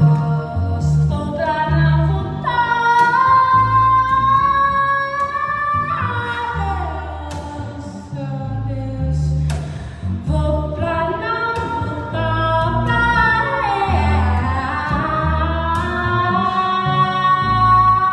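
A woman singing long notes that slide up and down in pitch, accompanying herself on an upright double bass whose low notes move beneath the voice.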